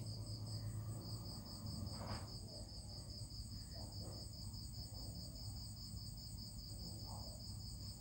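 Insect chirping steadily in a high, evenly pulsed trill, over a faint low hum.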